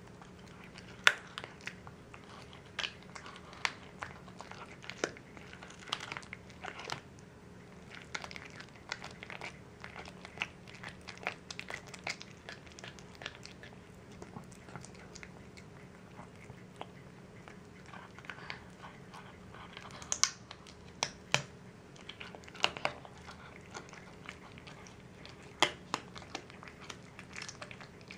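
A cat chewing raw chicken leg on the bone: irregular wet crunches and sharp cracks as its teeth work through bone and skin. The loudest cracks come about a second in and again around twenty and twenty-six seconds in.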